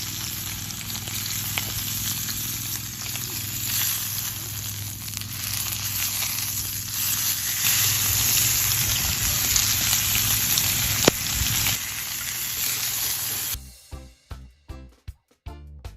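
Food sizzling on a barbecue grill: a steady dense hiss with an occasional pop. A little over two seconds before the end it cuts to music with a steady beat.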